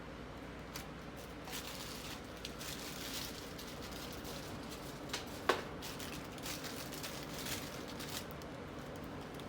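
Light handling noises: scattered small clicks and rustles over a steady low hum, with one sharper click and a short falling squeak about five and a half seconds in.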